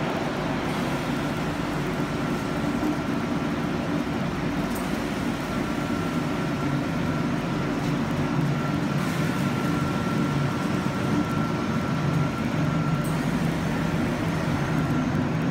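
Steady drone of a textile tearing line's air filtration plant running, its fans and fibre separator moving dust- and fibre-laden air, with a faint steady high whine on top.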